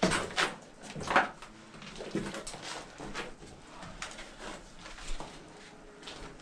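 Footsteps on a rubble-strewn floor, irregular steps with the loudest near the start and about a second in, then fainter ones.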